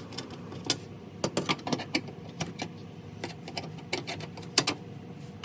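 Irregular sharp clicks and taps of a flathead screwdriver turning and popping out the plastic screw-type clips of a Honda Accord's engine undercover, the loudest click a little before the end, over a faint steady hum.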